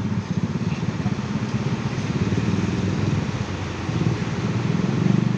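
Bus diesel engine running close by at low revs, a steady rapid low pulsing that grows a little louder near the end.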